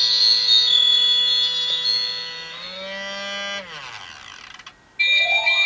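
Magic Mixies Crystal Ball toy playing electronic magic sound effects through its speaker: a sustained synthetic tone that steps up in pitch about three seconds in, then glides down and fades. About five seconds in, a new rising tone starts as the ball changes colour during the creation spell.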